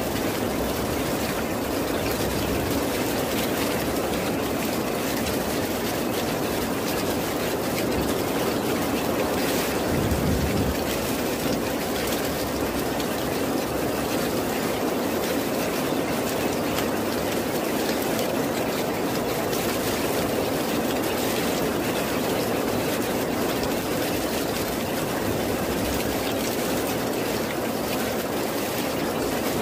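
Steady rain: a dense, even hiss of falling water with fine pattering of drops, and a short low rumble about ten seconds in.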